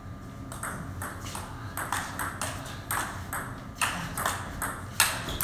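Table tennis rally: the ball clicks off the rubber paddles and the tabletop in a quick back-and-forth series, about two to three hits a second. The loudest hit comes near the end.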